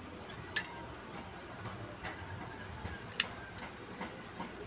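Two sharp clicks about two and a half seconds apart, with a couple of fainter ticks between them, over a steady low background noise.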